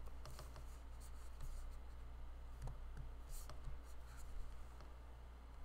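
Faint room tone: a steady low electrical hum with scattered light clicks and rustles.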